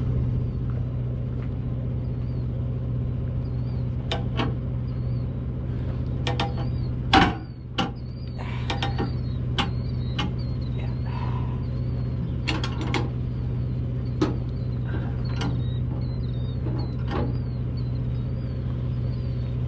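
Steel tie-down chains and a chain binder clinking and clicking as they are hooked and tightened to chain a tracked tractor down. There are scattered sharp metallic clicks and clanks, the loudest about seven seconds in, over a steady low engine hum.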